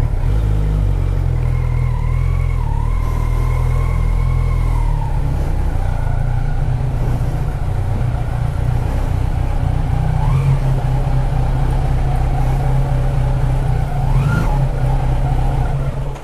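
Motorcycle engine running at low speed with a loud exhaust while the bike rolls slowly, with two short throttle blips about ten and fourteen seconds in. The engine cuts off at the very end.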